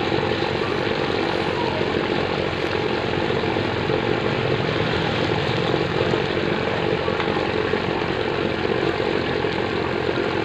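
Fish frying in hot oil: a steady, unbroken roar with an even hiss.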